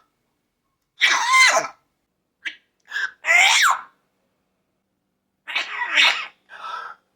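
Parrot imitating coughs and sneezes: a string of short, harsh bursts in three clusters, separated by silent gaps.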